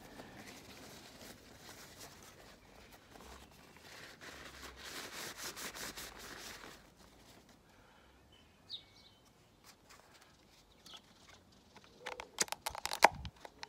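Paper towel rustling and crinkling as an oil filter housing cap is wiped clean. Near the end come a few sharp plastic clicks and knocks as the new cartridge oil filter element is pushed onto the cap.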